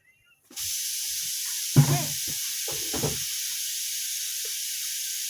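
A few low clunks from the washing machine's spin-motor brake plate being unfastened and lifted off. A steady hiss starts suddenly about half a second in and runs under them.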